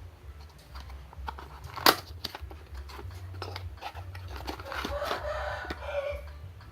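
Packaging being handled and opened: scattered clicks, a sharp snap about two seconds in, then a stretch of crinkling and tearing.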